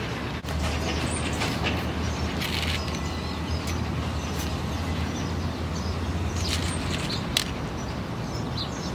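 Street ambience: a steady low rumble of traffic, with scattered faint bird chirps and one sharp click about seven seconds in.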